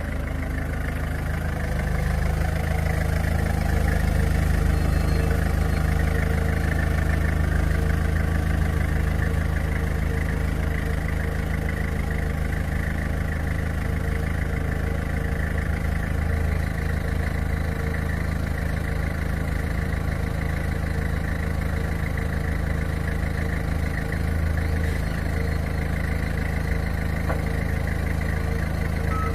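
Forklift engine running steadily, a low even hum that grows a little louder about two seconds in.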